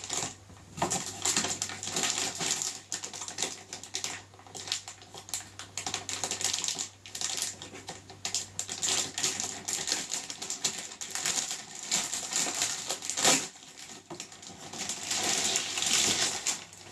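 Metallised anti-static bag crinkling and crackling as it is peeled open and pulled off a drawing-tablet screen: irregular crackles throughout, with a sharper crackle about two-thirds of the way through.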